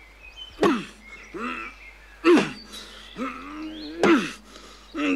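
A man's voice making short wordless cartoon grunts and calls, several sliding down in pitch, with one longer held call about three seconds in.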